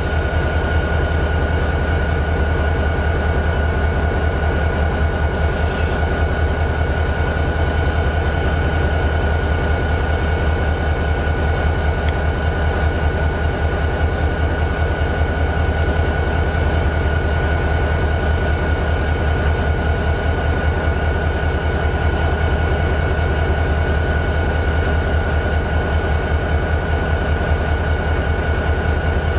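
Turbocharged 16-cylinder EMD 645 diesel of a GP40-2 locomotive idling steadily: a fast, even chugging with a steady high-pitched whine over it.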